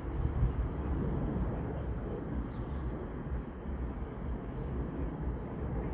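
Outdoor ambience: a fluctuating low rumble of wind and distant background noise, with faint, high, short chirps about once a second. No train is passing.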